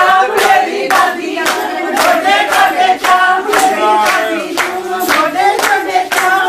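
A group of women singing Punjabi giddha boliyan together, with steady hand-clapping in time, about two claps a second.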